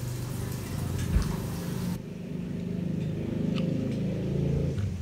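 A motor vehicle engine running steadily, swelling louder and then fading near the end, with a few faint crunchy clicks from chewing fried squid.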